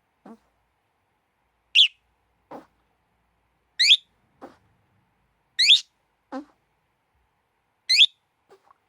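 Pet bird calling: four loud, high, upward-sweeping chirps about two seconds apart, with quieter, lower short calls in between.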